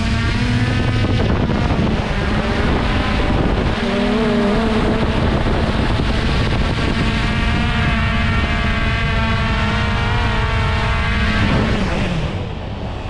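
Traxxas Aton quadcopter's motors and propellers whining at a steady pitch, wavering briefly, with wind buffeting the microphone; near the end the pitch falls and the sound dies away as the motors spin down.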